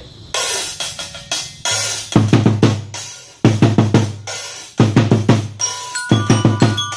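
Drum-and-lyre band playing an Ati-Atihan drumbeat: snare drums and cymbals in a fast rhythm, joined about two seconds in by bass drums hitting in repeated bursts. Bell-lyre notes come in near the end.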